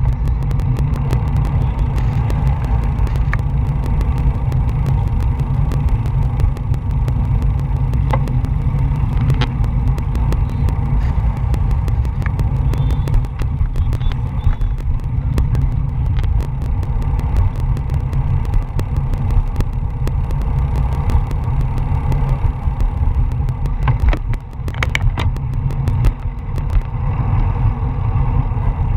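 Steady low rumble and rattle picked up by a bicycle-mounted action camera rolling slowly over pavement, with scattered sharp clicks throughout.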